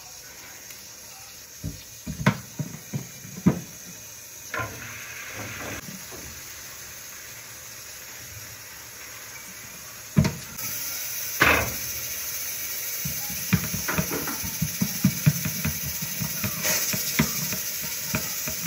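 Hands folding and patting oiled msemen dough on a tray: a few separate knocks early, then from about two-thirds in a quick run of soft pats as the dough is pressed flat. A steady hiss sits underneath and grows louder a little past halfway.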